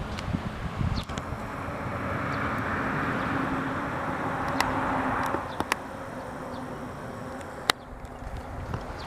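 Outdoor background noise: a hiss that swells and then drops off about five seconds in, with a few sharp clicks, the loudest one near the end.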